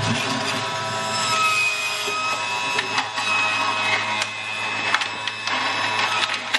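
Electric centrifugal juicer running, its motor humming steadily while celery pressed down the feed chute crunches and cracks against the spinning blade. The motor sound cuts off abruptly near the end.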